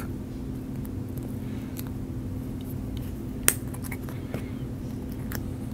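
A steady low hum with a few faint clicks from a surgical needle holder at work on foam pipe insulation, and one sharper click about three and a half seconds in.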